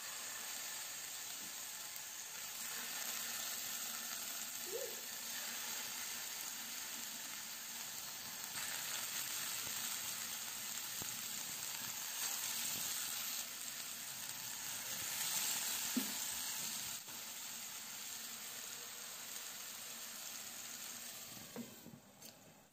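Ground-beef and cabbage patties sizzling steadily in hot oil in a frying pan, with a few faint knocks as more patties go in. The sizzle turns quieter near the end as a glass lid covers the pan.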